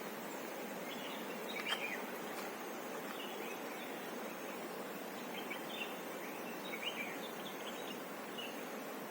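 Steady rush of a waterfall, with short high bird chirps over it several times; the loudest chirp comes about two seconds in.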